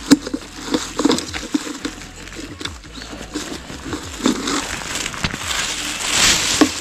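A thin plastic carrier bag rustling and crinkling in the hands as litter is picked out of dry leaves and grass, with scattered crackles of the dry litter and a few sharp clicks, the loudest right at the start. A longer, louder crinkle comes about six seconds in.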